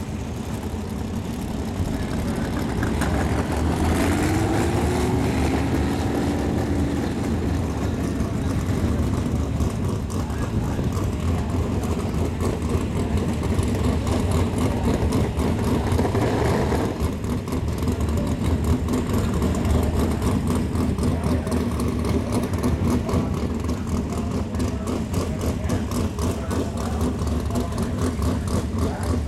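Winged dirt-track sprint car engines running and revving. About three to seven seconds in, a pitch rises and falls as an engine revs past, over a steady engine rumble.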